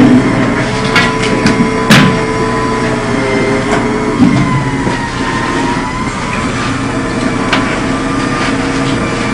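Electric potter's wheel motor running with a steady hum whose pitch wavers and sags a little as the clay is worked, with a few sharp knocks.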